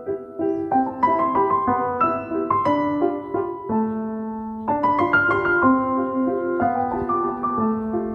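Background piano music: a slow melody of held notes over a lower accompaniment.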